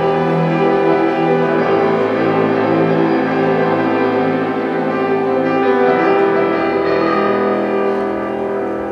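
Classical music: piano with orchestral strings playing sustained chords.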